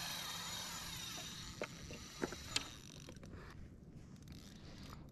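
Spinning reel's drag buzzing as a hooked albacore tuna makes a run and pulls line off, with a few sharp clicks; the buzz fades out about three seconds in.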